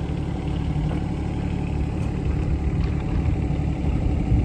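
Yanmar diesel engine of a 2008 John Deere 17D mini excavator idling steadily, with a brief louder sound right at the end.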